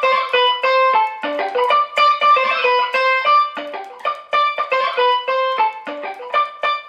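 Electric guitar through an octave-up pitch shifter blended with the dry signal, overdrive and plate reverb, imitating a steel drum: a quick melody of short, staccato palm-muted notes, each with a bright ping and a short ringing tail.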